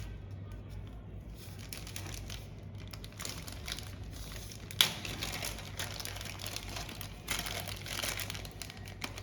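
Hands fitting a new coil into an Alba Urmet electric door lock: rustling and small clicks of parts being handled, with one sharp click about five seconds in. A steady low hum runs underneath.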